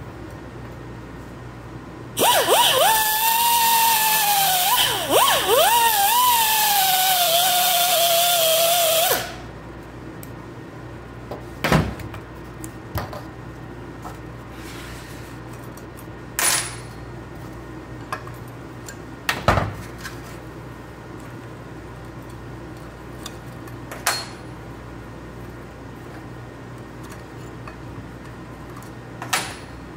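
A grinder runs hard for about seven seconds, its pitch dipping repeatedly as it bites into metal, while it cuts at the old wheel bearing and retaining ring on a Jeep Grand Cherokee rear axle shaft. After it stops, there are several sharp metal clinks and knocks as parts are handled on the bench.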